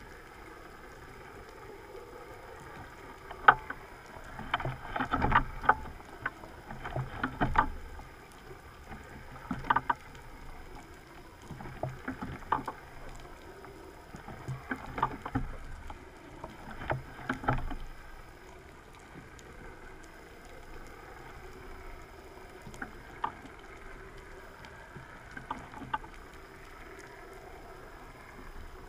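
Water swishing and irregular knocks and clicks picked up by an underwater camera, over a steady hiss. The bursts come every couple of seconds through the first half or so, then thin out to a few isolated clicks.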